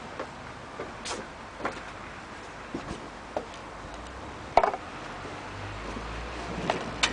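Scattered small clicks and knocks from a spring-powered UTG Type 96 airsoft sniper rifle being handled and cycled, with one sharp loud snap about four and a half seconds in and another sharp one near the end.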